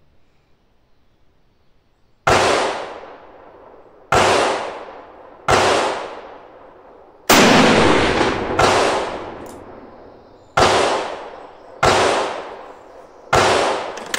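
Rifle shots on a shooting range, starting about two seconds in: eight or nine sharp reports, one to two seconds apart, each with a long echoing tail under the range roof. The rate is too fast for one bolt-action rifle, so they come from several shooters.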